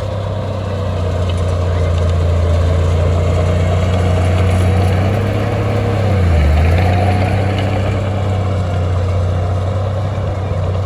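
Heavy diesel engine of earthmoving equipment running steadily under work. Its pitch dips briefly about six seconds in, then recovers.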